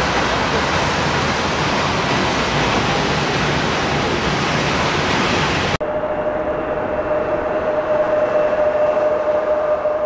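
Boeing 757-300's jet engines running at high power as it rolls along the runway, a dense rushing noise. About six seconds in it cuts off sharply, giving way to the steady high whine of a taxiing Boeing 787-8's engines.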